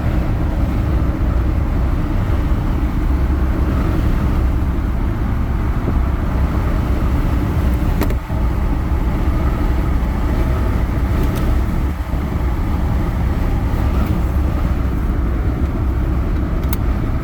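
Lifted Jeep driving at road speed, heard from inside the cab: a steady, loud, low rumble of engine and road noise, with two brief dips about eight and twelve seconds in.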